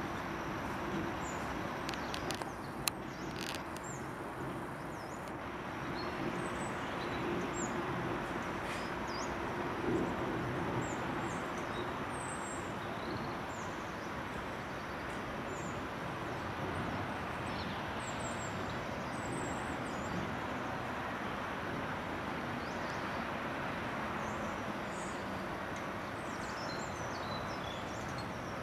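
Small birds chirping now and then, in short high calls, over a steady distant outdoor rush; a few light clicks in the first three seconds.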